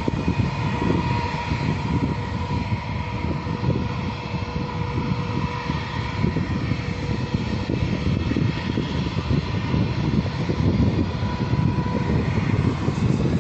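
Jet airliner turbofan engines running, a steady whine of several tones over a low, unsteady rumble; near the end the whine tones die away.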